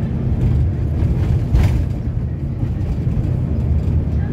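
Steady low rumble of a vehicle driving, heard from inside the cabin, with a brief louder rush about a second and a half in.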